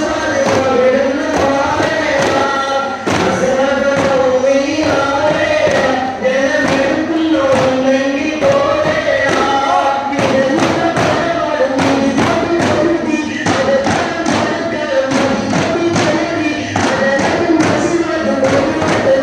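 Daff Muttu: a group chanting a devotional song in unison to the steady beat of daf frame drums struck by hand.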